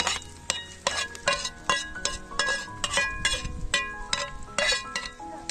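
Background music with plucked notes, over a run of sharp clicks or knocks about two to three times a second.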